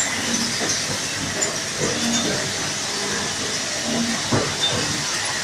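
Running machine tools on a factory floor: a steady hiss, with brief low hums and a few light knocks.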